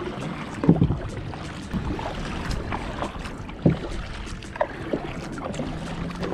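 Double-bladed kayak paddle strokes, the blades dipping and splashing in the water on alternate sides, irregular and about one every second or so, over the lapping of water against the hull.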